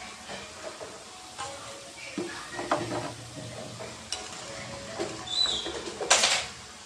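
Hot oil still sizzling and bubbling in a metal kadai as deep-fried semolina pantuas are scooped out with a steel slotted spoon, which clinks and scrapes against the pan a few times. A louder, brief scrape-and-hiss comes near the end.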